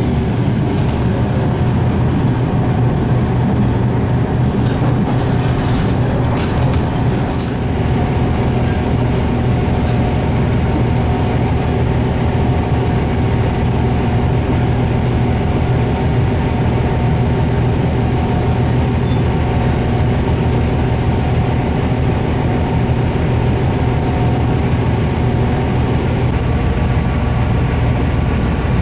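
Diesel railcar running at a steady pace, its engine giving a steady drone with a few fixed pitches.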